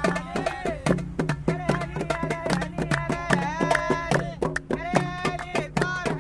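Egyptian street music: men singing over a quick beat of tabla drum and tambourine strokes.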